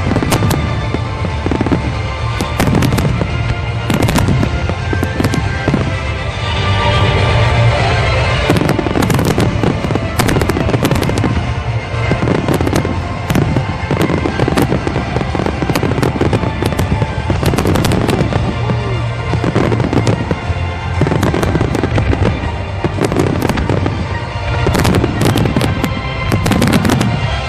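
Wide starmine fireworks barrage: shells bursting and crackling in rapid, continuous succession, over loud music played with the show.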